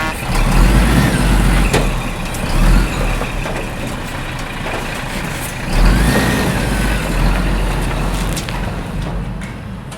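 Heavy truck-like engine noise, continuous and rumbling, with a few short knocks, fading near the end.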